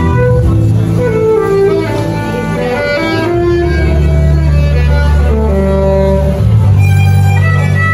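Violin played live, a bowed melody over sustained low accompaniment whose notes change every few seconds.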